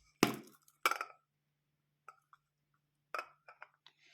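Small lidded tea jars from a tea set being handled: two sharp clinks close together just after the start, then a few faint clicks and a short run of light taps near the end.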